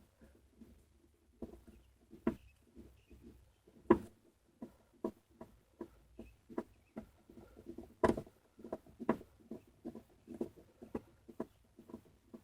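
Phillips screws being worked out of a car's plastic door panel with a screwdriver: irregular small clicks, taps and scrapes of tool on screw and plastic, with two sharper knocks about four and eight seconds in.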